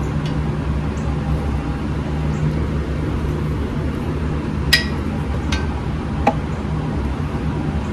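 Steady low background hum, with a few light clicks or clinks about five and six seconds in.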